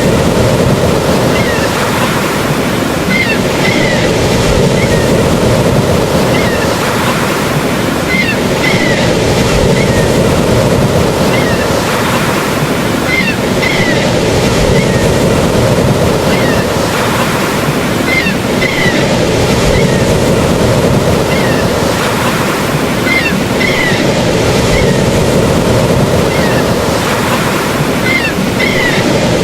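Ocean waves washing onto a shore in a steady, dense wash of surf, with short high chirps every second or two.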